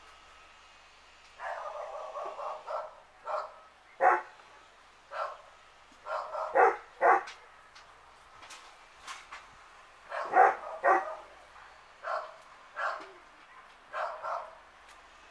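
A dog barking repeatedly in short barks, some coming in quick runs, the loudest about four, six and a half and ten and a half seconds in.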